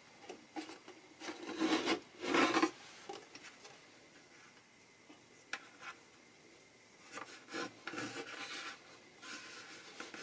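Hands working a spring-clamp magnetic pickup into the small sound hole of an acoustic guitar: rubbing and scraping of the pickup and fingers against the soundhole edge and top. The scraping is loudest about two seconds in, with a couple of light clicks midway and more rubbing near the end.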